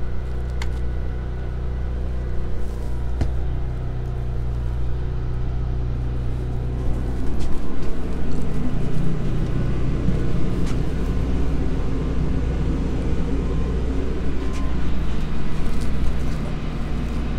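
Steady hum of a backup generator running under load from an RV rooftop heat pump, together with the heat pump itself running, heard inside the trailer. About seven seconds in the sound grows louder and rougher.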